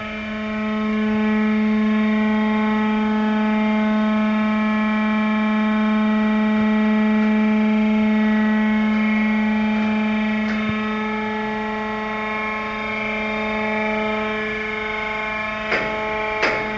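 Steady machine hum from the drive of a wood-packet transport track as a hinged rail section is raised, one low tone with overtones that comes on at once and holds. A few sharp clicks or knocks come near the end.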